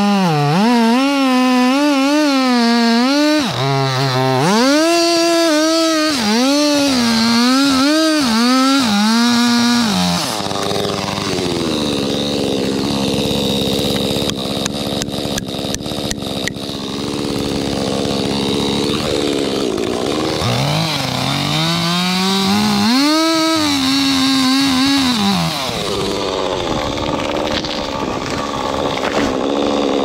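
Two-stroke chainsaw cutting wood, its engine pitch rising and falling again and again. It runs steadier and a little quieter for about ten seconds midway, then swings up and down through another cut before steadying again.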